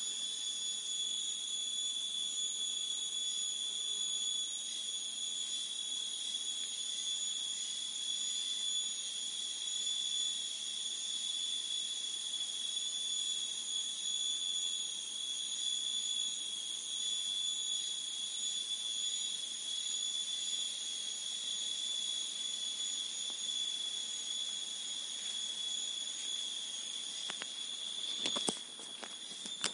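A cricket's steady, unbroken high-pitched trill, with a few sharp clicks near the end.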